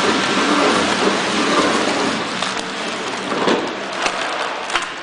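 KT-320 horizontal flow-wrapping machine running as it wraps trays in heat-seal film: a steady, dense noise with a few sharp clicks in the second half.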